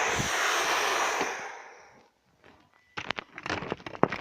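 A loud hissing whoosh that starts abruptly and fades away over about two seconds, then a few light clicks and knocks.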